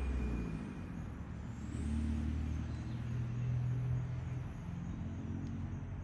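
Motor vehicle engines running at low speed: a low engine hum that fades in the first second, then swells again from about two seconds in and dies down after about four and a half seconds.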